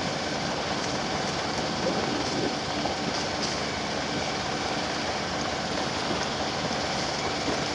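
A small sailing yacht's motor running steadily under way, a constant even drone with no change in speed.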